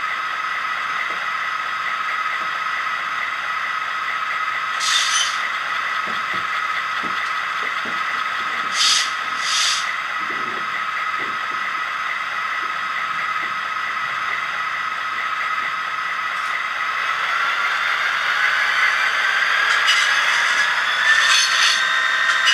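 A LokSound v4 DCC sound decoder in an HO-scale SD45T-2 model locomotive plays its diesel engine sound through the small onboard speaker, a steady drone with a faint hiss. There are short hisses at about five seconds and twice near nine seconds. From about seventeen seconds the engine sound rises in pitch and grows louder as the locomotive starts to move.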